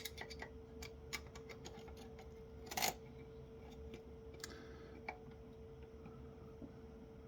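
Faint, scattered clicks and taps of small metal parts and hand tools being handled on a workbench, with one louder scrape about three seconds in, over a faint steady hum.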